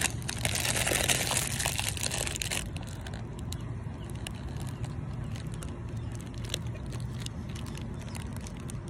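Biting into and chewing a frosted blueberry Pop-Tart, with its foil wrapper crinkling in the hands. The loudest crunching and crinkling falls in the first two and a half seconds, then gives way to quieter chewing with small clicks over a steady low background hum.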